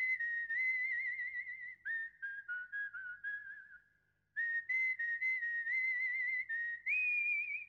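A whistled tune: one clear, high melody line with quick wavering trills on the held notes. It breaks off briefly about halfway through and rises to a higher note near the end.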